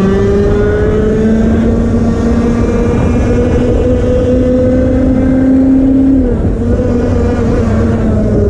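125cc two-stroke TAG kart engine at full throttle, its pitch climbing steadily as the kart accelerates down the straight. About six seconds in the pitch drops sharply as the throttle comes off for the corner, then the engine carries on at a lower pitch.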